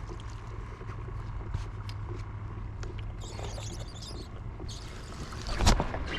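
Steady low hum of a motor, with scattered light clicks and one sharp knock near the end.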